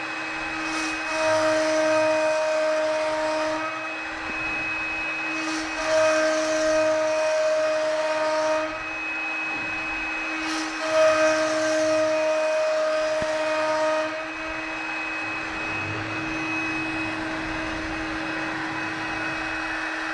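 CNC wood-carving router running: a steady spindle whine, with a louder, higher tone that comes in three spells of two to three seconds each as the machine works under load.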